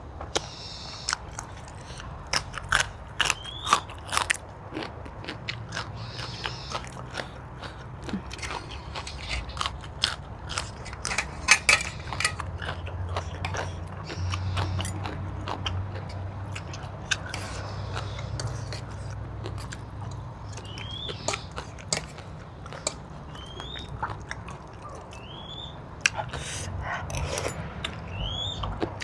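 Close-miked chewing and biting of a Thai seafood papaya-style salad with capelin roe and shrimp: many small crunches and wet mouth clicks, with a few short rising squeaks.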